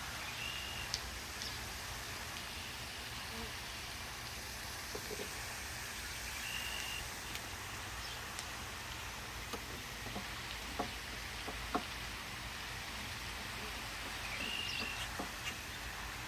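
Wooden beehive frames and hive parts being handled: scattered light clicks and knocks over a steady outdoor hiss, with a short high chirp three times.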